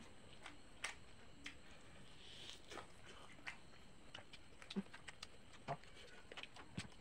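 Eating by hand: faint, irregular wet clicks and smacks of chewing and of fingers working rice on a plate.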